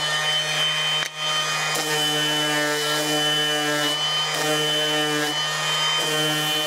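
Random orbital sander running steadily as 240-grit paper is worked over laser-cut plywood to remove burn marks: a steady motor hum and high whine over the hiss of the pad on the wood, its tone dipping briefly a few times as the pad moves and bears down.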